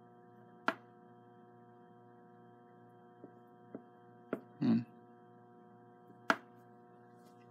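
Small sharp clicks and taps as a pancake armature's shaft is set down and nudged on the rods of a knife-edge static balancer, to find its heavy side. There are about five clicks, the loudest a little past six seconds, and a short soft thump near the middle, all over a faint steady electrical hum.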